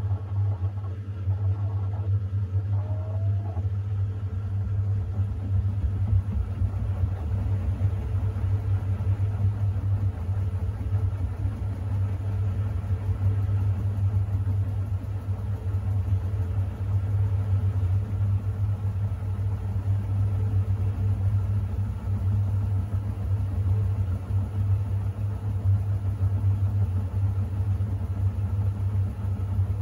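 Siemens iQ700 WM16XGH1GB front-loading washing machine in its final spin, the drum turning steadily with a low, even hum.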